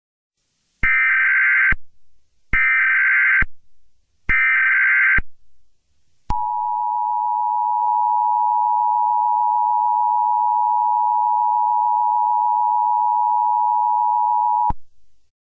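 Emergency Alert System broadcast tones: three short SAME digital header bursts, each just under a second long and about a second apart. About six seconds in, the two-tone attention signal starts, a steady dual tone held for about eight seconds that cuts off abruptly.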